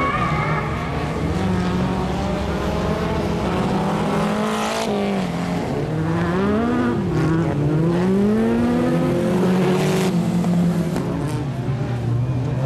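Race car engines revving on a dirt track, the pitch climbing and dropping again and again as the cars accelerate and lift off, with a steady noisy background.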